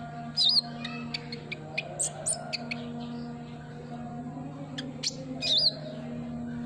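Olive-backed sunbird (kolibri ninja) calling. A quick run of short, sharp high chirps is bracketed by two wavering high notes, about half a second and five and a half seconds in. Under it runs a soft, steady background music drone.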